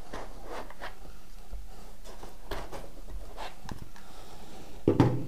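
Spare DJI Mavic Pro drone batteries and their packaging being handled: light rustles and small plastic clicks, with a louder thump about five seconds in.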